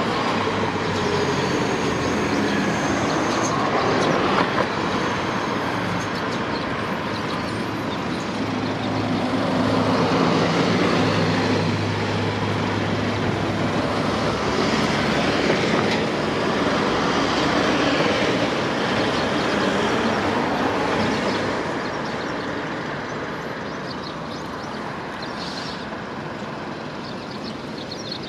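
Road traffic: a continuous wash of passing vehicles, swelling and fading as one car after another goes by, with a vehicle's low engine hum around ten seconds in. It eases off somewhat in the last few seconds.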